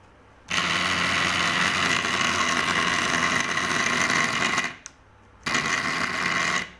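Small DC motor, freshly restored, running with a steady high whine. It is switched on about half a second in and stops just before five seconds, then runs again for about a second before stopping near the end.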